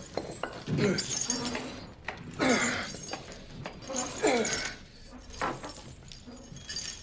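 A man grunting with strain on each pull-up rep, each grunt falling in pitch and ending in a breathy exhale, about one every one and a half to two seconds.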